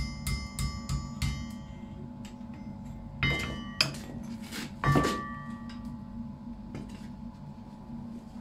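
Hammer blows on a steel anvil as hot iron is forged by hand, each strike ringing: a run of quick light strikes in the first second or so, then three heavier ringing strikes a few seconds in, over a steady low hum.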